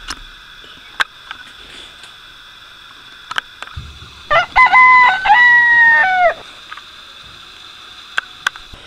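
A rooster crowing once, about four seconds in: a cock-a-doodle-doo of about two seconds, rising quickly, holding, then falling away at the end, over a faint steady high hum.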